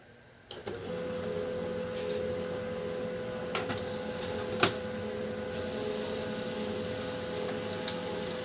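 Canon LBP2900 laser printer starting up about half a second in and running a print after its noisy gear has been fixed: a steady mechanical hum with a few sharp clicks from the mechanism, the loudest a little under halfway through.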